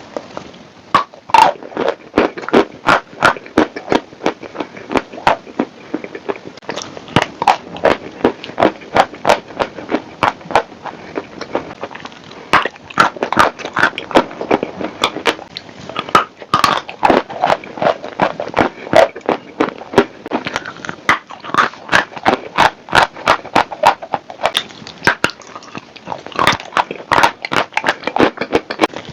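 Dry chalk crunched and snapped close to the microphone, dense sharp crunches several a second in a mukbang-style fake-eating ASMR.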